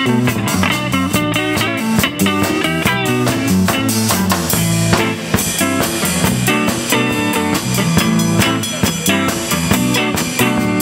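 Blues-rock band playing an instrumental break: a lead guitar line with bent, wavering notes over a steady drum-kit beat and bass.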